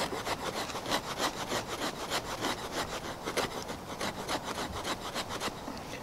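Condor Woodlaw bushcraft knife shaving thin curls down a wooden stick to make a feather stick. The blade scrapes along the wood in quick repeated strokes, several a second, that thin out near the end.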